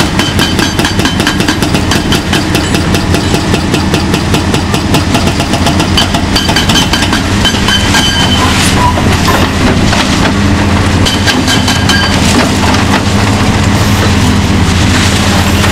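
Epiroc HB 4100 hydraulic hammer on a Hitachi ZX470LC-5 excavator breaking concrete in rapid, even blows over the steady drone of the excavator's diesel engine. The blows turn less regular in the second half.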